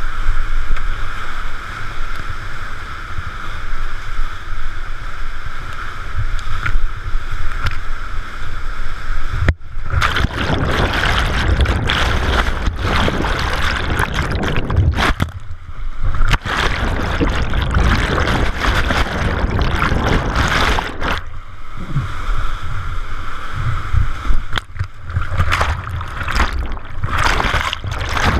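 Whitewater churning in a river whirlpool, heard through a GoPro Hero 3's waterproof housing as the kayak is held in it: a steady muffled rush with deep rumble for the first ten seconds or so, then rougher and broken up by sudden brief drops as the camera is pushed underwater and back out.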